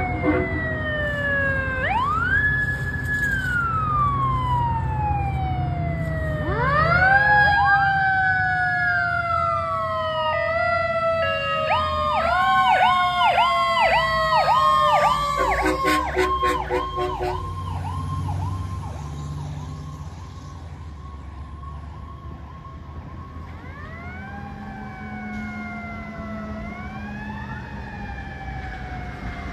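A fire engine's sirens sound together: an electronic siren sweeps up and down in an alternating wail, then switches to a quick repeating Powercall cycle, about two a second. Over it a Federal Q mechanical siren winds up and coasts down in long slow glides. Train-horn blasts come near the middle, and the sirens grow fainter in the second half.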